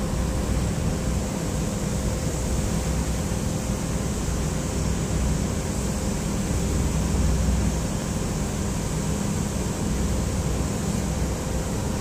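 Boat under way at sea: a steady low engine drone with a thin constant hum above it, mixed with water rushing past the hull.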